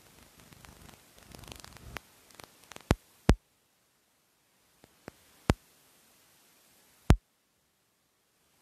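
Close rustling, then four loud, sharp clicks spread over several seconds with near silence between them: handling noise close to the microphone.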